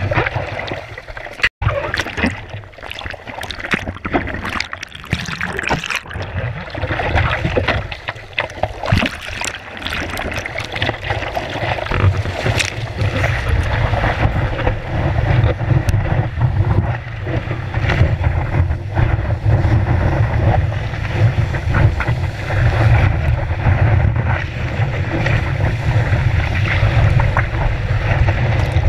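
Seawater splashing and rushing over a surfboard as the surfer paddles and then rides a wave, heard close up from a board-mounted camera. The low rumble of moving water grows stronger about twelve seconds in.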